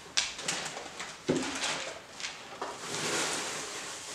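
A small wooden box knocking a few times and being set down on a table with a thud, then wood-wool packing rustling in a cardboard carton as hands rummage through it.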